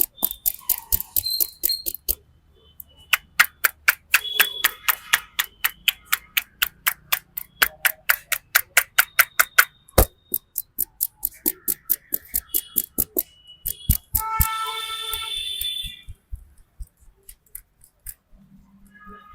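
Sharp hand slaps and claps of a barber's percussive head massage, in quick rhythmic runs of about four a second with short pauses. About fifteen seconds in, a brief held tone with several steady pitches sounds.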